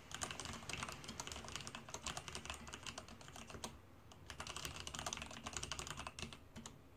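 Fast typing on a Leopold FC660M compact mechanical keyboard with Cherry MX Black linear switches: a dense run of key clacks, pausing briefly about four seconds in, then resuming and trailing off near the end.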